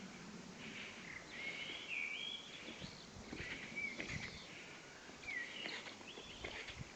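Songbirds singing: a string of short chirps and quick rising and falling whistled notes, fairly faint over a steady background hiss, with a few soft knocks in between.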